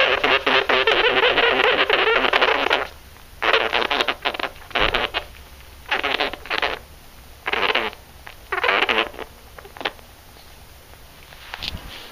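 Sugar gliders crabbing: a loud, rasping, rapidly pulsing buzz, the defensive warning call of an upset glider. It runs for about three seconds, then comes back in five shorter bursts.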